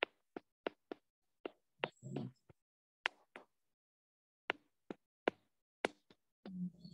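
Stylus tapping and clicking on a tablet's glass screen while handwriting, about a dozen short sharp taps at irregular intervals.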